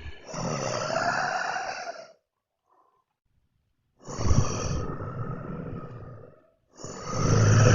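Zombie horde sound effect: groaning, growling voices that come in three stretches. There is a silent gap of about two seconds after the first stretch and a short break near the end before a louder swell.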